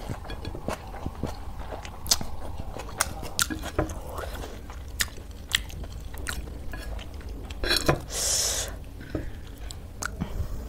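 Close-miked chewing of a mouthful of chow mein noodles, with many sharp wet mouth clicks and smacks, and a short loud hiss about eight seconds in.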